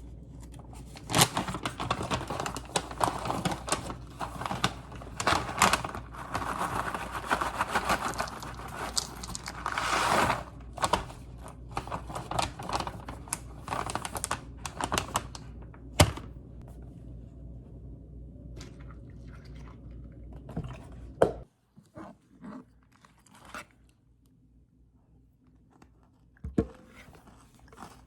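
Objects being handled at close range: rustling, crinkling, tearing and knocking, over a steady low hum. The hum cuts off about 21 seconds in, leaving a few faint clicks and taps.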